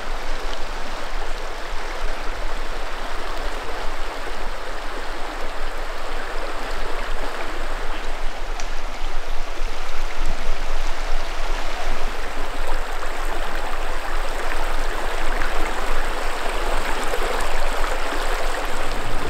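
Clear, shallow mountain river running over cobbles and around rocks: a steady, even rush of water.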